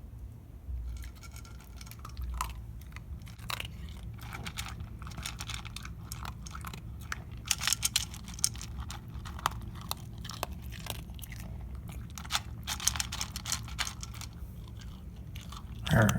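A Chorkie (Chihuahua–Yorkshire terrier mix) chewing and crunching its dinner, in irregular runs of quick bites. A brief louder sound comes near the end.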